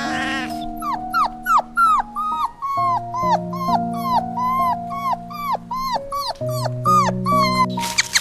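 Newborn puppies whimpering: a run of short, high squeaky cries that rise and fall, about two a second, stopping near the end. Background music with held notes plays underneath.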